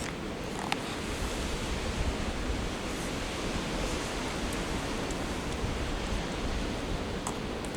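Steady wash of sea surf and wind, with a few faint short clicks.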